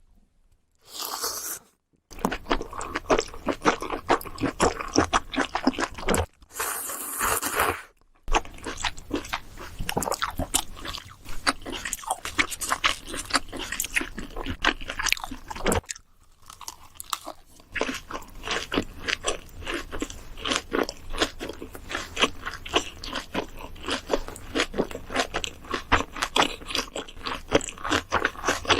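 Close-miked eating of pork kimchi stew with ramen noodles and leaf-wrapped rice: steady wet chewing with crisp crunches and rapid mouth clicks, broken by two longer slurps about one and seven seconds in.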